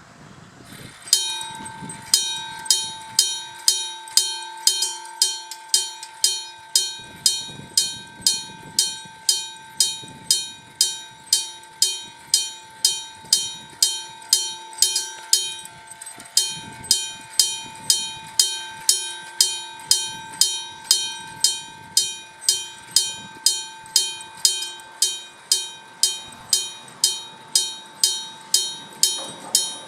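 Gong-type level-crossing alarm: an AC electric alarm bell (Nippon Signal EG1003A) striking a real metal bell about twice a second, each strike ringing on over a steady bell tone. It starts about a second in, and the beat falters briefly about halfway.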